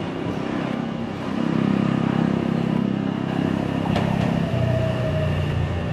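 Meitetsu 2200 series electric train running slowly in along a station platform: its traction motors and inverter hum in low steady tones that step down in pitch about two thirds of the way through as it brakes, with a faint falling whine near the end.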